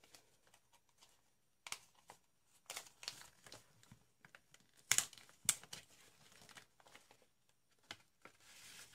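Paper envelope being handled and opened by hand: faint, scattered short crinkles and rustles of paper, the loudest two about five seconds in.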